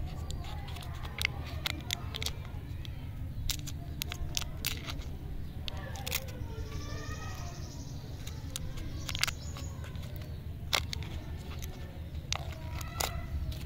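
Paper lollipop wrapper being unfolded and peeled off by hand: scattered crinkles and sharp crackles of the paper.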